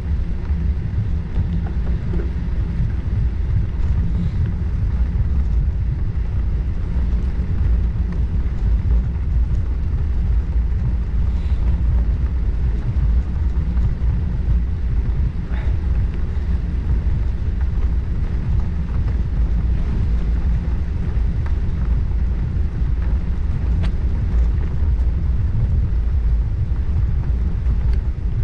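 Wind from the bicycle's forward motion rumbling steadily on the action camera's microphone, with the ride's rolling noise underneath and a few faint ticks.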